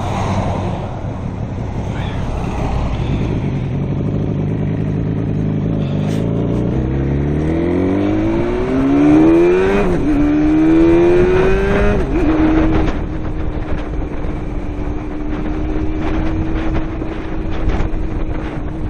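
Motorcycle engine pulling away. It runs low at first, then the revs climb, drop sharply at a gear change about halfway, climb again, and settle to a steady cruise for the last third.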